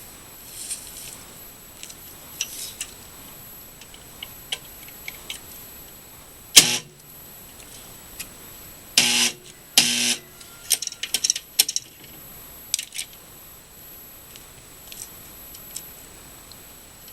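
Scattered clicks, knocks and scrapes from working at a snowblower engine that will not turn over because ice has frozen its flywheel. There are three louder jolts about six and a half, nine and ten seconds in, followed by a quick run of clicks.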